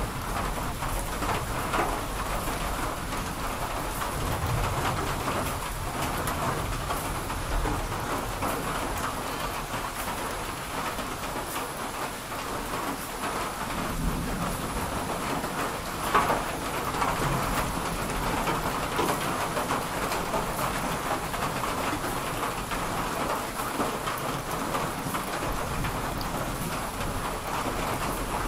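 Steady rain falling, with low rumbles of thunder rolling in twice and a single sharp tap just past halfway.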